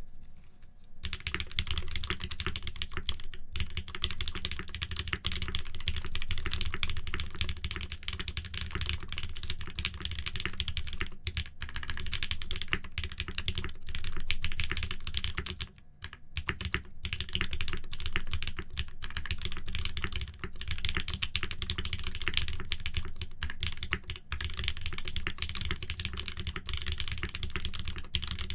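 Continuous fast typing on a custom mechanical keyboard: an Aksara SE, top-mounted with an FR4 plate, fitted with fully tuned Gateron Mizu Mink switches on SPRiT Slow IV 68g springs and GMK keycaps. The keystrokes run as a dense stream of clicks, starting about a second in, with a few brief pauses.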